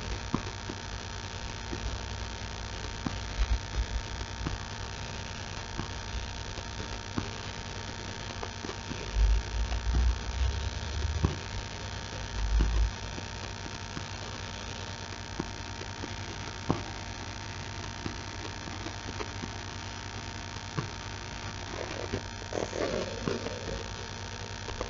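Steady electrical hum and hiss of room tone, with a few faint ticks and some low thumps around the middle.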